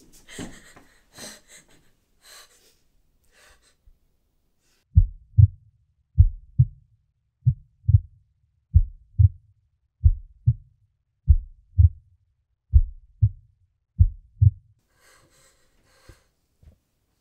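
Heartbeat sound effect: eight low double thumps (lub-dub), one pair about every 1.3 seconds, starting about five seconds in. Before the beats there is faint rustling.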